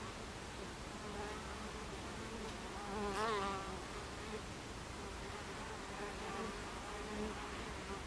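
Buckfast honeybees buzzing in flight around a hive entrance. One buzz grows louder about three seconds in and wavers in pitch as a bee passes close.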